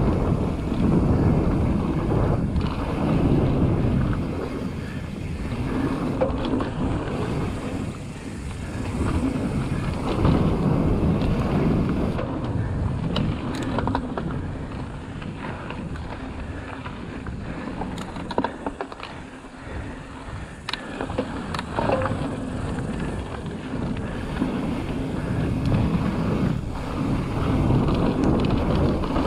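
Mountain bike riding fast down a dry dirt trail: tyres rolling over hard-packed dirt and gravel, under heavy wind on the microphone that swells and eases with speed. There are a few sharp clicks and rattles from the bike near the middle.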